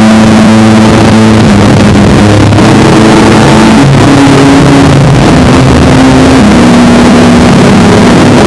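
Harsh noise/drone music: a dense, distorted wall of noise at full loudness, with low droning tones underneath that jump to a new pitch every second or two.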